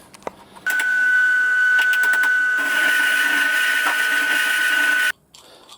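A small electric motor, likely a workshop power tool, running at a steady speed with a high whine for about four seconds; it starts and stops abruptly and gets harsher about halfway through.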